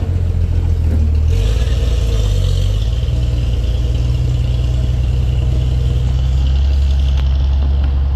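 Isuzu minibus's diesel engine running under load as it climbs a rough dirt slope, a steady low engine note that shifts about a second in.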